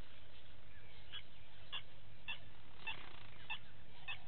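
An animal calling the same short note over and over at an even pace, a little under two calls a second.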